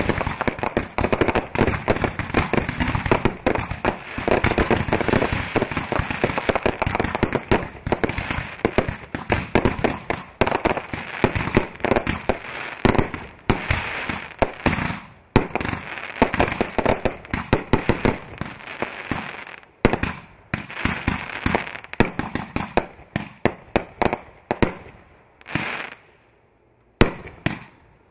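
Consumer fireworks finale: a dense, rapid barrage of overlapping bangs from aerial shells and cakes going off. About twenty seconds in the barrage thins out to scattered single bangs, with a short lull near the end.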